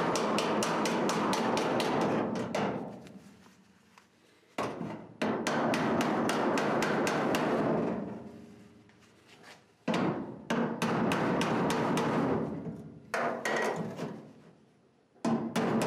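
Steel body hammer tapping rapidly on the edge of a 1966 Mustang's sheet-steel quarter panel backed by a dolly block, about eight blows a second, forming the panel's lip. The blows come in four or five quick runs, with the metal ringing out in the pauses between them.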